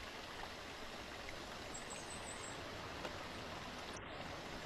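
Steady, even rush of falling water from a waterfall, with faint high chirps about two seconds in.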